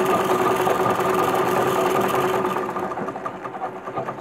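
Butterfly sewing machine's handwheel spun fast to wind a bobbin: a steady mechanical whir with a hum to it, which slows after about two and a half seconds into a run of separate ticks as the wheel runs down.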